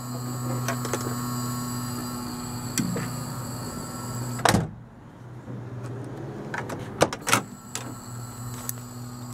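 1969 Corvette's door warning buzzer, worked by the horn/buzzer relay, sounding with a steady buzz now that the new relay is in. It cuts off with a sharp click about halfway through, and after a couple more clicks it starts buzzing again near the end.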